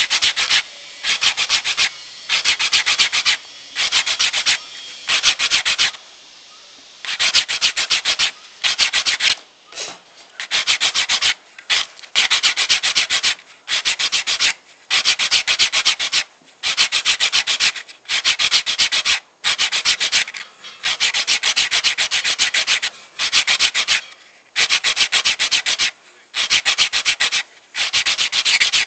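An olive wood bracelet being hand-sanded with sandpaper. The paper scratches against the wood in quick back-and-forth strokes, in short bursts of about a second each with brief pauses between them.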